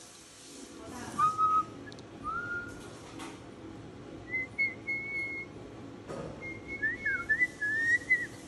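Moluccan cockatoo whistling: two short whistled notes early on, a higher held whistle in the middle, then a quick string of wavering up-and-down whistled notes near the end.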